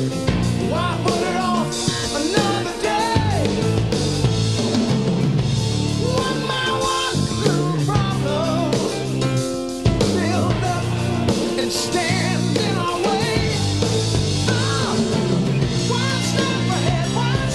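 Background music: a rock song with singing and a drum kit.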